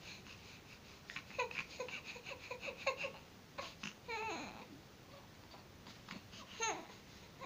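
Two-month-old baby cooing and babbling: a run of short, quick coos, then two longer calls that slide down in pitch, one about four seconds in and one near the end.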